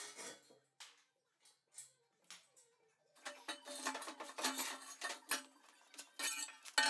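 A few scattered metal clicks, then from about three seconds in a busy run of metallic clinking and clattering as tools and exhaust hardware are handled.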